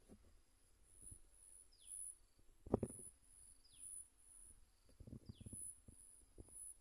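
Forest ambience: an insect's high pulsing buzz repeats about twice a second, and a short call drops in pitch about every two seconds. A low muffled rumble of handling noise on the microphone comes a little under three seconds in and again near the end.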